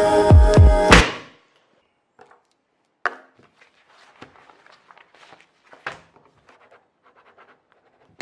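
Electronic music with a heavy bass beat that cuts off about a second in, followed by faint scattered clicks and knocks, two of them sharper, about 3 and 6 seconds in.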